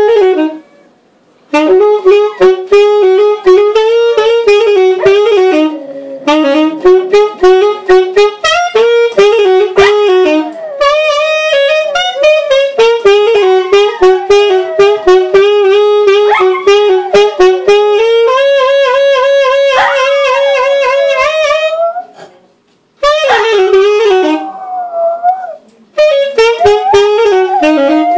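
Saxophone played in long melodic phrases with a few brief pauses, and a dog howling along with it partway through.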